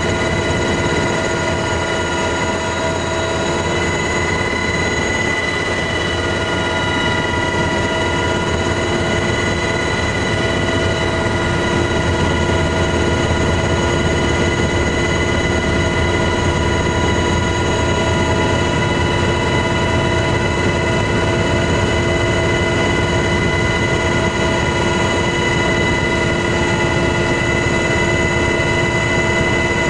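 MH-60S Knighthawk helicopter's twin turboshaft engines and rotors running steadily, heard from inside the cabin: a loud, even rush with several steady high whines over it.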